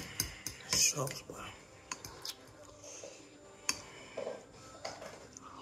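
Faint, indistinct speech in the room with scattered small clicks and mouth sounds from someone chewing noodles.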